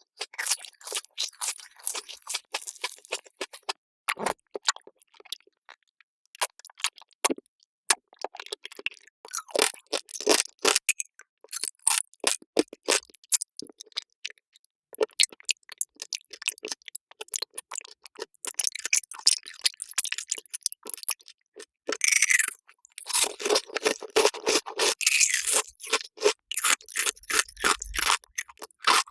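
Close-miked mukbang eating sounds: rapid crisp crunching bites and chewing in quick succession, with a denser scraping, crackling stretch about three-quarters of the way through.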